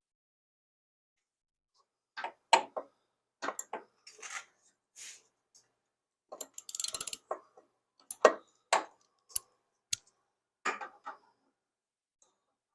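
Irregular sharp clicks and metallic clatter with a quick rattle about seven seconds in: a key working the seat lock of a 1977 Suzuki GS550 motorcycle and the seat being released and handled.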